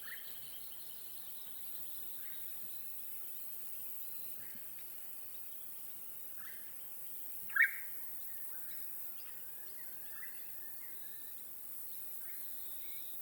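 Lakeside ambience: scattered short bird calls and chirps, with one louder call about halfway through, over a faint steady high hiss.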